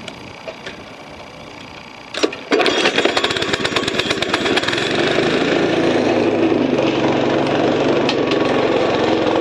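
Small gas engine of a homemade motor scooter starting about two seconds in, with a brief sputter before it catches, then running steadily as the scooter rides off on its newly installed torque converter.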